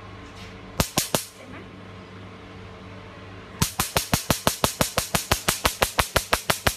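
Scar-treatment laser handpiece firing on the skin: two or three sharp snaps about a second in, then from about halfway a fast, even run of snapping pulses, about seven a second, over a low steady hum.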